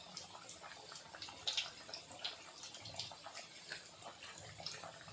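Chicken 65 pieces deep-frying in hot oil in a kadai: a faint, irregular sizzle with scattered crackles and pops.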